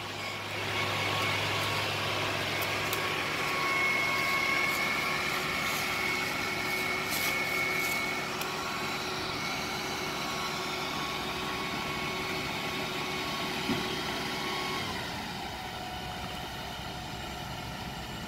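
Crane truck's engine running steadily, its pitch and level dropping a little about fifteen seconds in.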